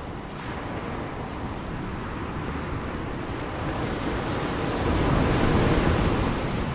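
Ocean surf: waves rushing and breaking, one swelling to its loudest about five seconds in before easing off, with wind noise.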